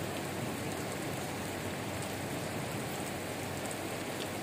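Heavy rain pouring steadily, an even hiss of rain falling on the ground.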